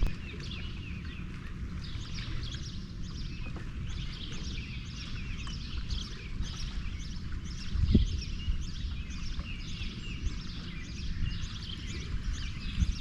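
Birds chirping over and over, short high notes repeating every half second or so, above a steady low rumble. There is one dull thump about eight seconds in.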